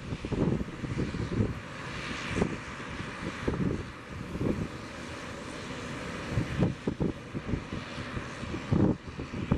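ATR 72 twin-turboprop airliner's engines running steadily as it taxis, a continuous propeller and engine hiss. Gusts of wind buffet the microphone throughout.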